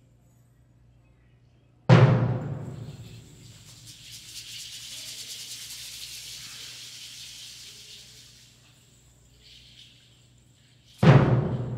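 A large matachines dance drum struck once with a deep boom that rings out over a second or two. A soft, high shaking sound follows for several seconds, and the drum strikes again near the end.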